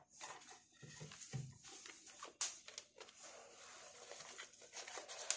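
Cardboard smartphone box being handled: rustling and scraping of the paper inserts and box flap, with scattered small knocks and clicks, quiet throughout.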